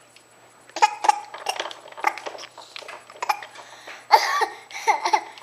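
A baby's short vocal sounds: little throaty coughs mixed with babbling, in several separate bursts, the loudest about four seconds in. The coughs are the ones the mother reads as a bid for attention.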